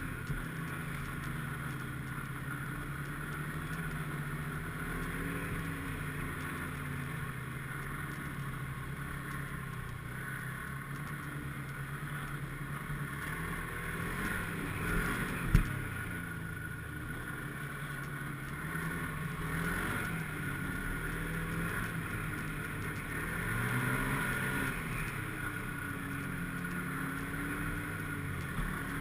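Snowmobile engine running while riding, its pitch rising and falling several times with the throttle. A single sharp knock about halfway through.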